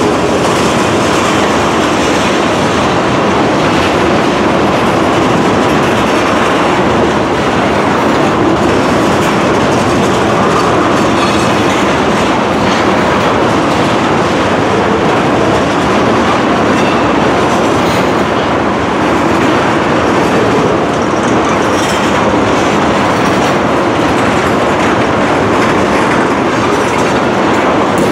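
Freight train of tank cars rolling past close by, a steady, loud rumble and clatter of steel wheels on rail.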